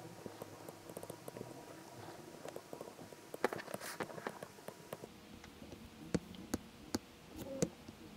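Faint, scattered ticks and taps of a stylus on a drawing tablet as numbers and symbols are written by hand.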